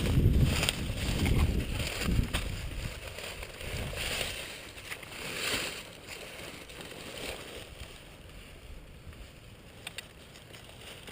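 Close rustling and scuffing of movement through brush, heard against the microphone, with a few sharp clicks; it dies down to a low hiss after about six seconds.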